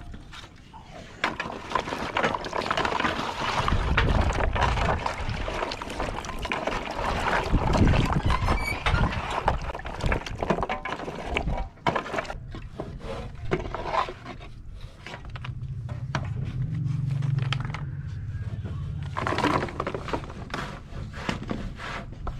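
Small wooden blocks clattering against each other and a plastic tub as they are tipped and stirred in liquid dye with a perforated scoop, with scraping and wet sloshing; the clatter is heaviest in the first third.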